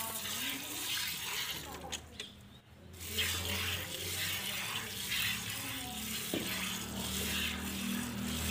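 Hand-milking a buffalo into a steel bucket: the milk streams hiss as they squirt into the pail, with a brief pause about two seconds in.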